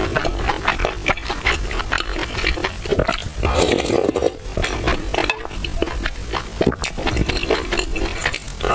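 Close-miked eating sounds from a bowl of milk tea with purple rice: a spoon clinking and scraping in the bowl, with slurping and chewing, as many short clicks and bursts.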